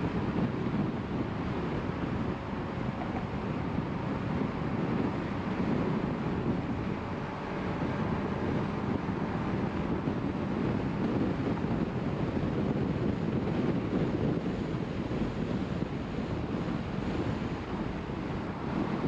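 Steady road noise of a car driving: tyre rumble mixed with wind noise.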